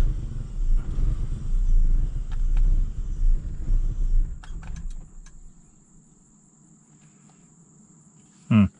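BMW E39 530i's M54 straight-six running roughly with an uneven, surging rumble, then stopping about five seconds in. The owner suspects a faulty new mass airflow sensor.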